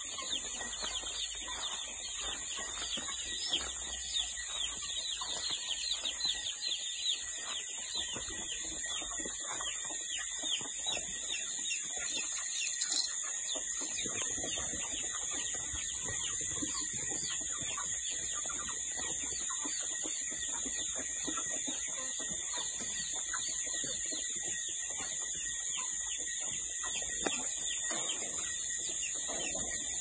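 A flock of broiler chicks peeping continuously in many overlapping short chirps, busiest in the first half. A steady high-pitched whine runs behind them, and a brief louder noise comes a little under halfway through.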